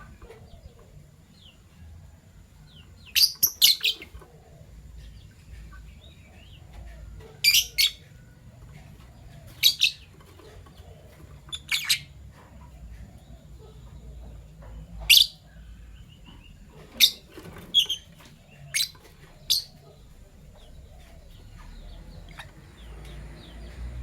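Fischer's lovebirds chirping: short, sharp, high calls, some single and some in quick pairs, every couple of seconds with pauses between, over a faint low hum.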